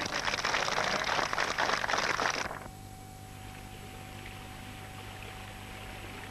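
Audience applauding, a dense patter of many claps that stops abruptly about two and a half seconds in. After it, a quieter, steady low hum with a faint steady whine.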